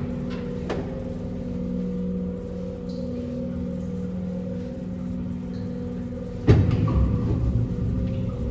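Tour boat's motor running with a steady hum. About six and a half seconds in, a sudden loud thump, followed by a heavier low rumble.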